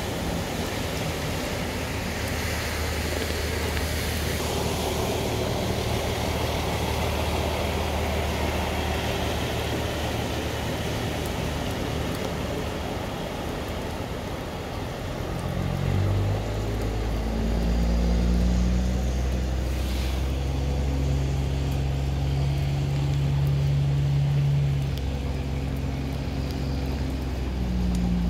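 Pickup trucks driving through deep floodwater: a rushing splash of water thrown up by the tyres, then, about halfway through, a truck engine's low drone that steps up and down in pitch as a pickup tows a loaded trailer through the water.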